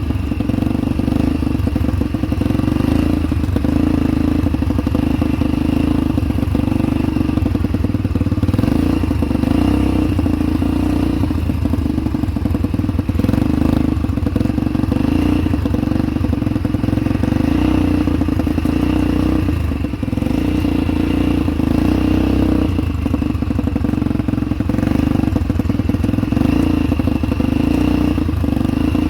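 ATV engine running steadily while riding, with rattling and knocks from the machine jolting over rough ground.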